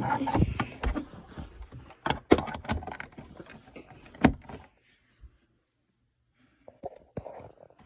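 Plastic smoke detector being handled: a run of sharp clicks, knocks and rattles for the first four or five seconds, then a few more clicks near the end.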